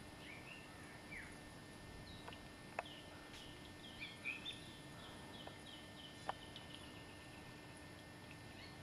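Small birds calling faintly: a few short curved chirps in the first second, then a quick run of short repeated whistled notes from about four seconds in. Two sharp clicks stand out, along with a faint steady hum.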